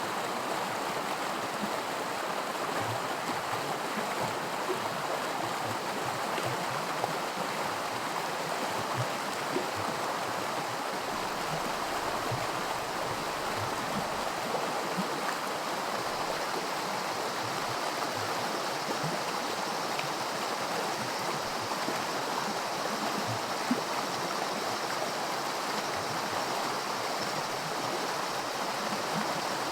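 Small creek running over rocks in shallow riffles of white water: a steady rushing and babbling, with small splashes and ticks scattered through it.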